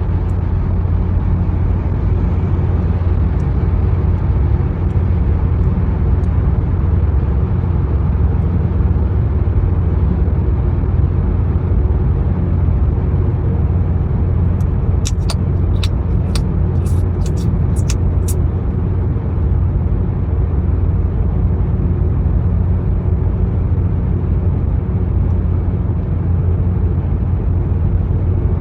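Steady low rumble of road and engine noise inside a moving car's cabin. A quick run of sharp clicks comes about halfway through.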